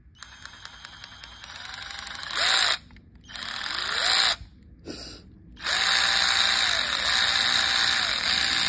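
Hyper Tough 12 V cordless 3/8-inch ratchet running free with no socket, driven by its variable-speed trigger. It starts slow as separate clicks that quicken as the trigger is pressed further, then runs at full speed in several short bursts with the motor whining up at each start, the last held for about three seconds.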